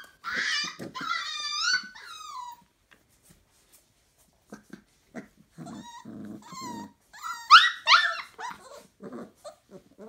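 Month-old Entlebucher puppies whining and yipping in high, sliding voices, with low puppy growls in the middle and a few loud squeals near the end.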